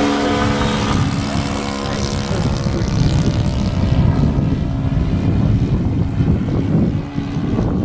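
Nitro glow engine of a model aerobatic airplane running steadily in flight, its drone strong for about two seconds and then fading. A low rumble becomes the loudest sound after that.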